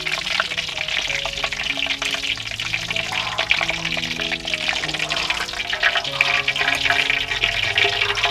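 Oil sizzling and crackling densely as whole fish deep-fry in a wok, under background music of soft held notes.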